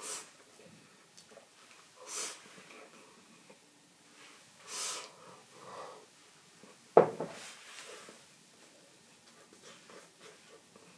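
A person eating making short breathy noises, three main ones a couple of seconds apart, then a single sharp knock about seven seconds in.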